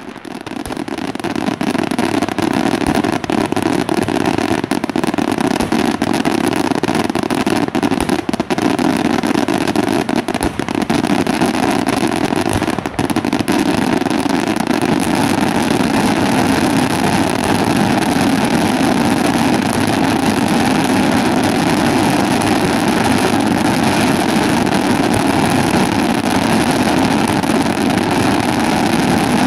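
Daylight fireworks barrage firing continuously: a loud, steady roar of rapid shots and crackling stars, with no break.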